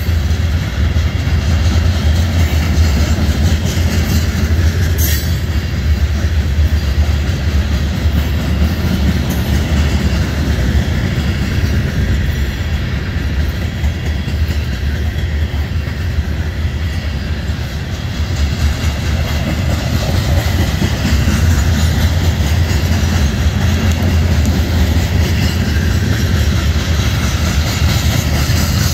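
Freight train of BNSF covered grain hopper cars rolling past, their steel wheels running loudly and steadily on the rails.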